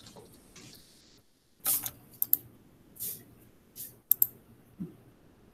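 Computer keyboard and mouse clicks close to the microphone, as slides are advanced in a slideshow: about eight sharp, irregularly spaced clicks and taps, starting after a short hush.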